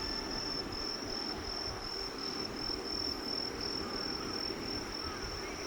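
An insect chirping: a high-pitched call repeating evenly about two to three times a second, over a faint steady background noise.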